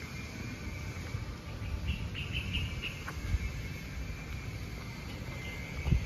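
Outdoor ambience: a steady high-pitched insect drone over a low rumble, with a few short chirps about two seconds in.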